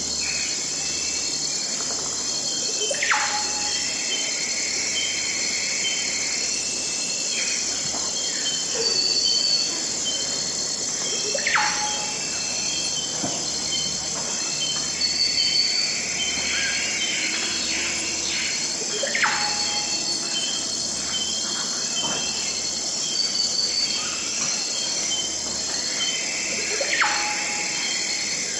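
Tropical forest insect chorus, dense and steady, with a call that sweeps down in pitch and repeats about every eight seconds, four times, among scattered short chirps.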